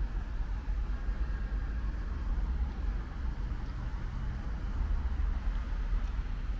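Steady ambience of light rain falling, over a constant low rumble of distant road traffic.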